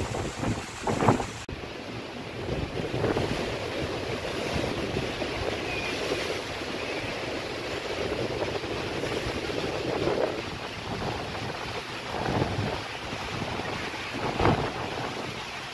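Rough sea surf washing steadily against the shore under strong wind that buffets the microphone, with heavier gusts about a second in and again near the end.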